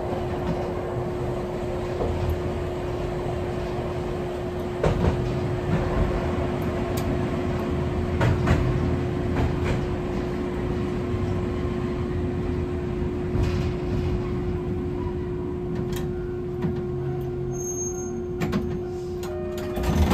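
Hankai Tramway 701-type tram heard from the cab: a steady electrical hum on one pitch over a low rumble, with scattered clicks and knocks.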